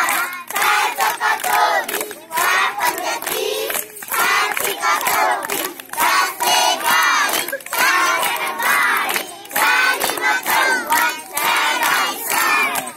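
A crowd of children's voices raised together in a loud rhythmic chant, pulsing in short repeated phrases about once a second.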